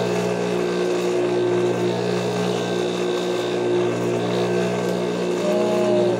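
Juki industrial sewing machine's motor running and humming steadily while the needle is not stitching. A short arching tone sounds near the end.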